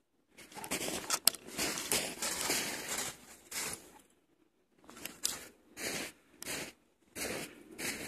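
Snow crunching and scraping: a long stretch of scraping for the first few seconds, then a string of separate short crunches.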